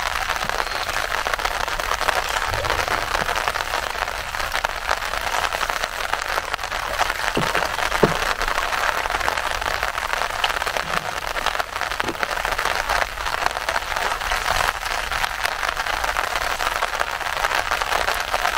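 Steady rain falling on the surface of a lake: an even hiss, with a few faint knocks in the middle.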